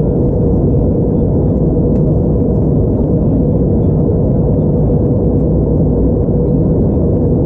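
Steady in-flight cabin noise of an Airbus A321neo heard from a window seat: a dense low rumble of airflow and its Pratt & Whitney PW1100G geared turbofan engines, with a steady hum.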